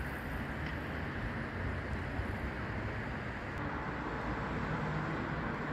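Steady low rumble of distant city traffic, with no single vehicle standing out.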